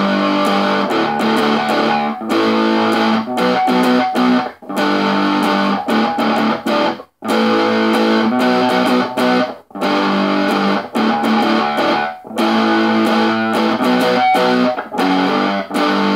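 Squier Stratocaster electric guitar in drop D, picked hard through the chorus riff of a pop-punk song. A chord phrase repeats about every two and a half seconds, with a brief break between each repeat.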